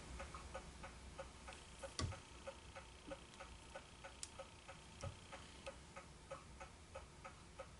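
Faint, even mechanical ticking, about four ticks a second, with a soft knock about two seconds in and another about five seconds in.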